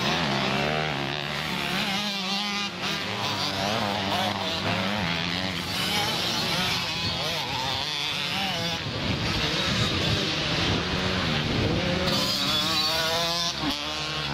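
Several small motocross bikes racing, their engines revving up and down in overlapping waves over a steady low drone.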